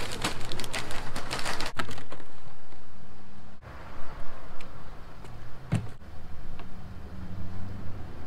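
A loaded wire shopping cart rattling and clattering as it is pushed through a store doorway. After a cut, a steady low hum with a few light clicks follows.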